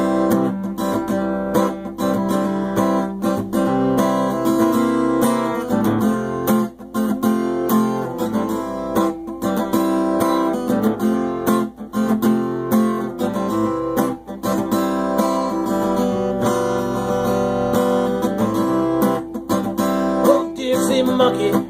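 Acoustic guitar strummed, chords played alone as an instrumental break with no singing.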